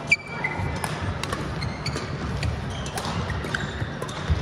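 Indoor court play: a loud, sharp shoe squeak right at the start, then scattered quick hits and footfalls and a loud knock near the end, over a steady murmur of the hall.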